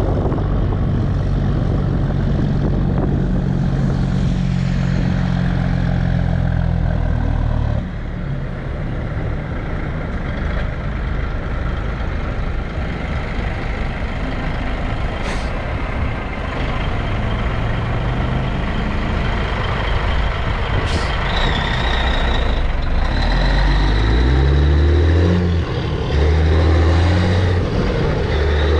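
Caterpillar 3406B diesel of a Peterbilt 362 cabover semi running steadily, then near the end pulling away and revving up in steps as it shifts up through the gears. Two sharp clicks come around the middle.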